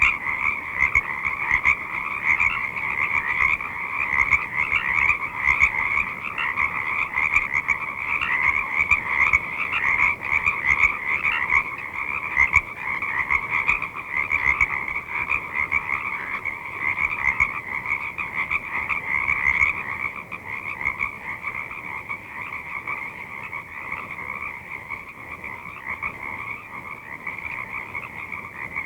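Chorus of many frogs calling continuously in a swamp, a dense mass of overlapping rapid croaks and peeps at two pitches. It thins and grows quieter over the last third.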